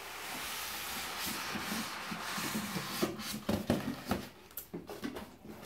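Styrofoam packing block and cardboard sliding out of a cardboard box with a steady scraping rub, followed by a few short knocks as the packaging is set down and handled.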